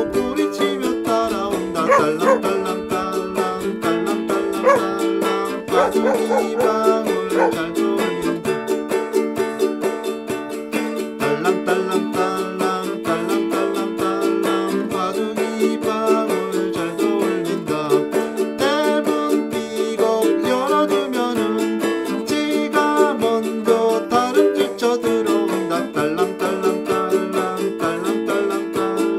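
Ukulele playing a Korean children's song, chords strummed in a steady, even rhythm under the melody.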